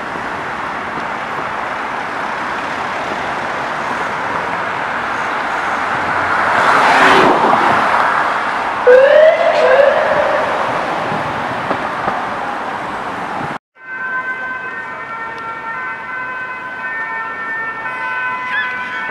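Road traffic noise swells as a vehicle passes close by. About nine seconds in comes a loud, short double rising tone. After a sudden break about two-thirds of the way through, an emergency vehicle's siren sounds with steady held tones.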